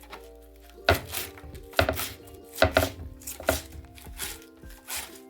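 Knife chopping on a cutting board: about seven sharp, unevenly spaced knocks, over background music.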